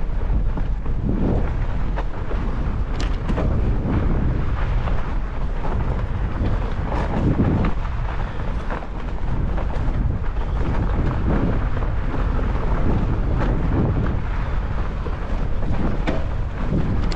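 Riding a fat bike over a snowy trail: a steady low rumble of wind buffeting the microphone and tyres rolling on snow, with scattered sharp clicks and rattles from the bike.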